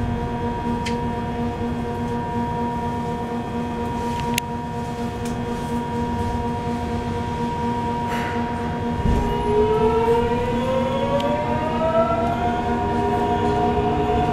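Subway car with a Mitsubishi GTO-VVVF inverter (Yokohama Blue Line 3000A) standing with a steady hum of several tones. About nine seconds in it starts off: a whine of several tones climbs in pitch together for about three seconds, then levels off as the train gets under way.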